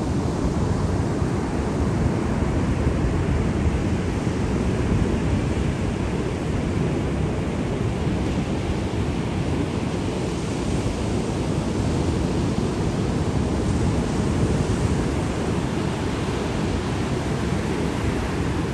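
Sea surf: a steady rush of waves washing in, swelling slightly a couple of times in the second half.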